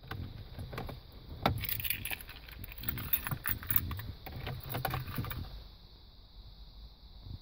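Keys jangling on a keyring, with a string of clicks and knocks as the key is worked in the ignition lock; the loudest knock comes about one and a half seconds in, and the rattling stops about five and a half seconds in.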